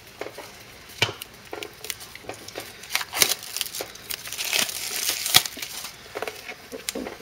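Plastic packaging crinkling and rustling in irregular crackles as trading cards and their wrappers are handled.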